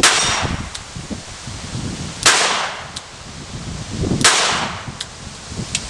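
Three shots from a 1940 Colt Police Positive Target .22 LR revolver, about two seconds apart, each a sharp crack with a short echo. Fainter sharp clicks come between the shots.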